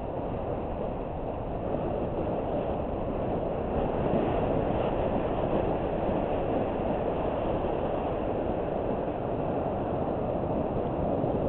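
Steady rumbling noise of a bicycle descending a dirt trail: tyres rolling over packed dirt and loose rock, mixed with wind buffeting the helmet camera's microphone. It gets a little louder a few seconds in as speed picks up.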